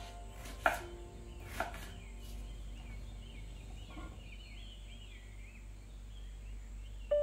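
Knife chopping eggplant on a wooden cutting board: two sharp knocks about a second apart over soft background music. Faint high warbling chirps follow, and the music comes back in loudly at the very end.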